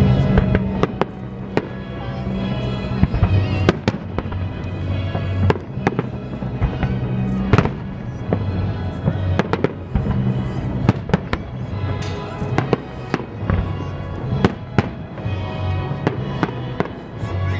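Aerial fireworks shells bursting in quick, irregular succession, many sharp bangs, over music with a steady, heavy bass.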